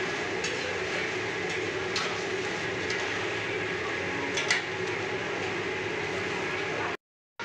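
Hot oil sizzling steadily in a large kadhai as a batch of puris (pani puri shells) fries, with a few clinks and scrapes of a metal slotted ladle against the pan. The sound stops suddenly near the end.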